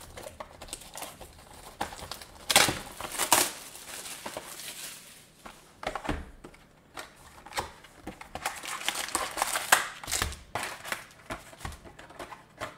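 Plastic-wrapped Panini Status basketball card packs crinkling and clattering as they are taken out of the cardboard hobby box and set down on a table, with scattered taps and clicks. The loudest rustles come about two to three seconds in and again near ten seconds.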